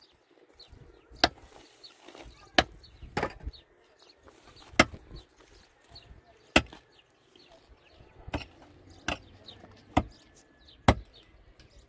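Repeated sharp chopping or striking blows, about nine strikes spaced a second or two apart.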